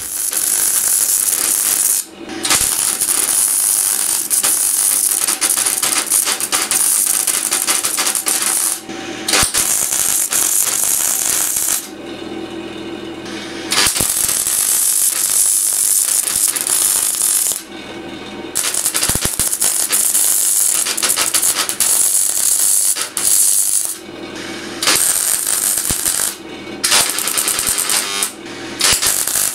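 Electric arc welder crackling on the sheet-steel fuel tank in runs of a few seconds, with short pauses between beads.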